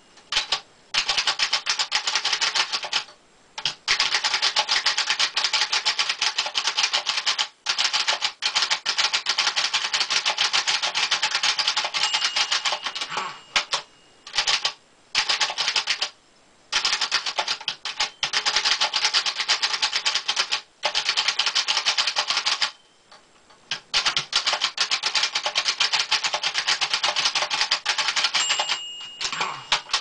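Rapid typing on an 1892 Empire No. 1 thrust-action typewriter: fast runs of key and typebar clacks, broken by brief pauses every few seconds. The line-end bell rings twice, about halfway through and near the end.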